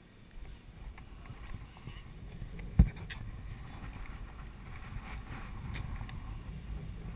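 Low rumbling wind and handling noise on a helmet-mounted camera, with one sharp knock a little under three seconds in and a few faint clicks after it. No engine can be heard running.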